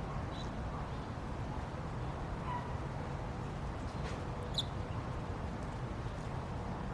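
African grey parrot giving a few short, faint chirps and whistles, well spaced, over a steady low hum.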